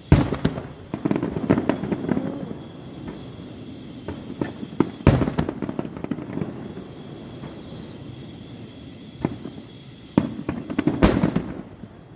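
Fireworks going off: three sharp bangs about five seconds apart, each followed by a second or two of crackling.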